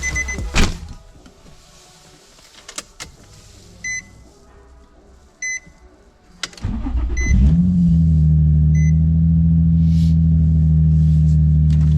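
A few clicks and short electronic beeps, then a Nissan 350Z's 3.5-litre V6 is cranked by the starter about six and a half seconds in. It catches with a brief rev flare and settles into a loud, steady idle through test pipes and a muffler delete, running on a base ECU map.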